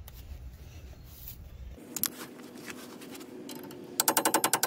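A new axle wheel seal being tapped into the rear axle housing bore: faint handling and a click, then about four seconds in a fast run of ringing metal-on-metal taps, about nine a second.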